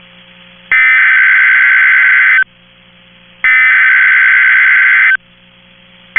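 EAS SAME header on NOAA Weather Radio: the digital data bursts that open an emergency alert and encode its event and area. Two identical bursts of about a second and a half each, a second apart, with the third starting at the very end, and a faint hum in the gaps.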